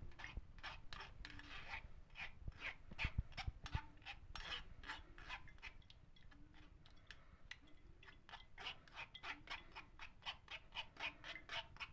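Quick scraping strokes, about three or four a second, as cooked banana is pressed and worked through a kitchen sieve.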